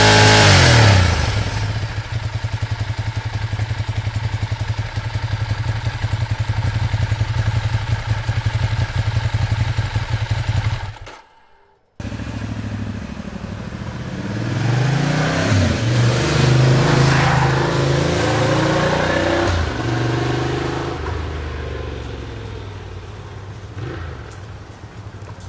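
Ducati Diavel's L-twin engine on its standard exhaust: a rev drops away into a lumpy, pulsing idle. About halfway the sound cuts out for a second, then comes several quick throttle blips, rising and falling, before it settles back to idle.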